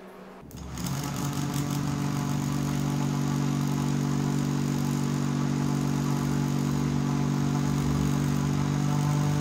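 Small 12-volt brushed DC motor from a DVD drive spinning a two-blade plastic propeller: it starts about half a second in and then runs with a steady hum and whir at an even pitch. It is being driven at about 22 volts, well above its 12-volt rating.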